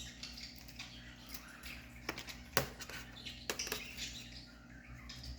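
Small plastic scratching and a few sharp clicks, the loudest about two and a half seconds in, as a plastic key fob is pried at to free its coin-cell battery.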